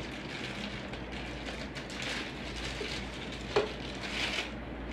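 Clear plastic packaging bag crinkling and rustling as it is handled, with one sharp click about three and a half seconds in.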